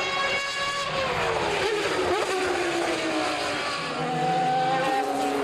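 Racing car engines running at speed as cars pass: one engine note falls steadily in pitch over about two seconds, another sweeps quickly past in the middle, and a higher, steadier engine note comes in near the end.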